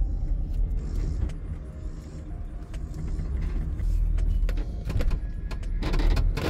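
Pickup truck's engine and road rumble heard from inside the cab while it is driven: a steady low drone with scattered light clicks and rattles.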